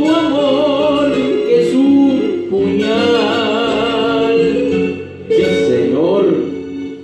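Man singing a pasillo into a microphone over guitar accompaniment, holding long notes with vibrato. The music dies away near the end as the song closes.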